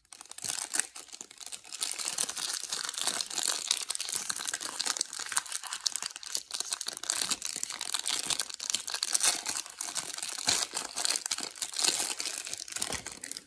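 Clear plastic wrapper around a stack of Select basketball trading cards crinkling continuously as it is handled and pulled open, a dense crackle of many small snaps.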